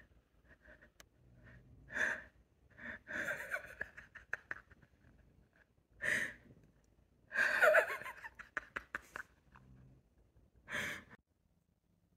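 Wheezing, gasping breaths in several separate bursts, the longest and loudest about seven to nine seconds in.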